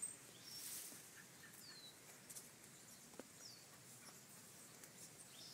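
Faint birdsong over quiet outdoor background: a few short, high chirps that slide down in pitch, spaced a second or two apart.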